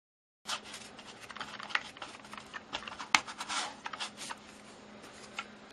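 Stiff bristles of a wide flat paintbrush scraping and tapping across a canvas and the masking tape on it: a rapid, irregular scratchy rasp full of sharp clicks, starting about half a second in.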